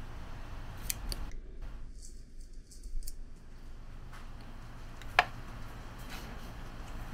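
A few short, sharp clicks at irregular intervals, the loudest a little past five seconds in, over a low steady hum.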